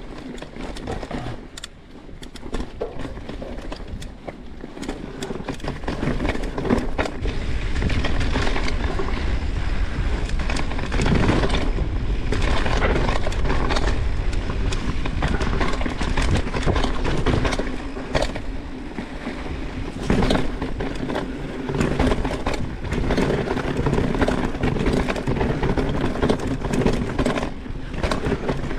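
Mountain bike riding down a dirt trail: tyres rolling over dirt and rocks, with rattles and knocks from the bike and a low rush of wind on the microphone. It gets louder from about six seconds in.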